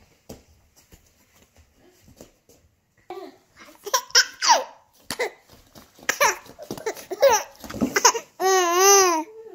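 Baby laughing, starting about three seconds in: a run of short laughs and squeals, then one long wavering laugh near the end.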